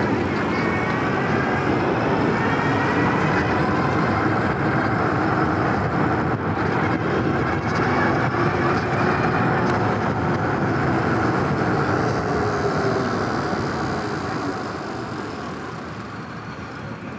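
Wind rushing over the microphone and road noise from an electric bike riding along a city street in traffic, with a faint whine rising in pitch in the first few seconds. It grows quieter in the last few seconds.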